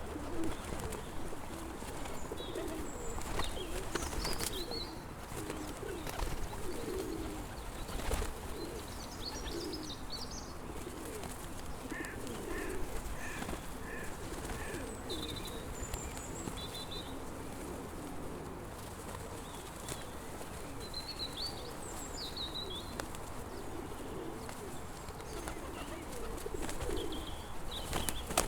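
A flock of pigeons cooing continuously in low repeated phrases, with smaller birds chirping higher above them and a few short sharp noises in the first third.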